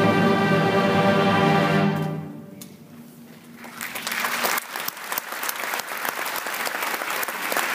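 Orchestra holding a final chord that dies away about two seconds in; after a brief hush, the audience breaks into applause that swells and keeps going.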